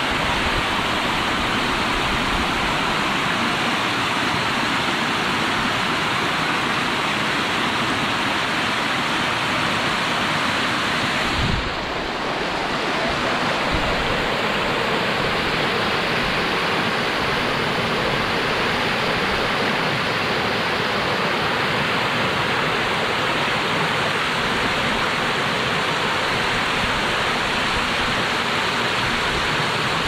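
Steady rush of a fast-flowing monsoon stream cascading over rocks toward a waterfall. There is a brief knock about twelve seconds in.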